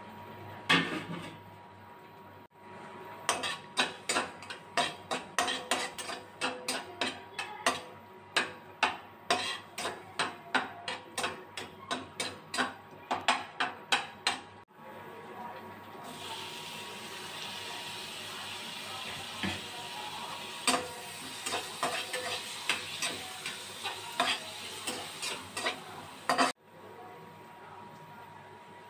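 Metal spatula scraping and tapping against a metal kadai in quick, sharp strokes while stirring paste and chopped green chillies. In the second half a steady sizzle of chopped tomatoes frying in the hot pan joins the spatula strokes.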